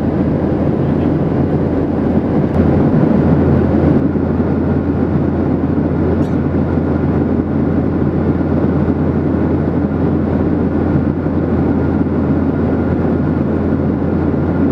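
Steady in-flight cabin noise of a Boeing 737-800: the rush of air over the fuselage and the drone of its CFM56-7B turbofans, heard from a window seat over the wing, with a constant low hum underneath.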